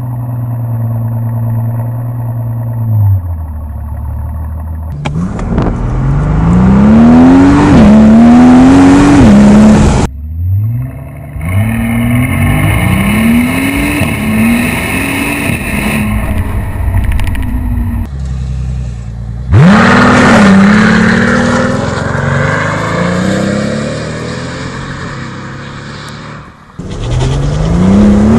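2013 Mercedes-Benz SL 65 AMG's twin-turbo V12 heard at its tailpipes, running at a fast idle that settles to a lower idle about three seconds in. Then, over several edited runs, it accelerates hard with a rising pitch broken again and again by the upshifts of its seven-speed gearbox.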